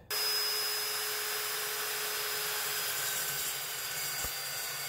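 Evolution S380CPS steel chop saw's carbide-tipped blade cutting through rusty steel angle iron. It starts suddenly and then runs as a steady cutting noise with a faint whine.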